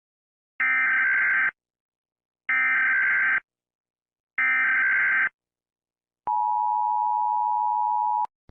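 Emergency Alert System SAME header: three bursts of warbling digital data tones, each just under a second long and about two seconds apart. Then comes the two-tone EAS attention signal, held steady for about two seconds, which signals the start of a new alert.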